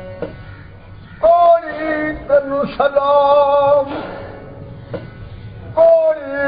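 An elderly man singing a devotional folk song in long held notes with wavering pitch bends, accompanying himself on a single-string gourd instrument. The singing enters about a second in after a short lull, and a new phrase starts near the end.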